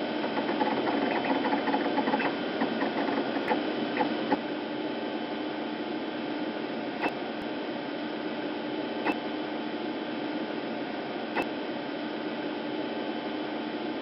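Old mainframe computer sound effect: a steady mechanical whirring hum, busy with rapid ticking in the first few seconds, then single sharp clicks about every two seconds.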